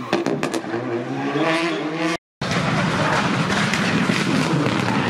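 Rally cars at full throttle. The first is a pitched engine note with several sharp cracks near the start. After a brief cut to silence about two seconds in, a Citroën DS3 rally car runs hard, a dense, rough engine sound at a steady loud level.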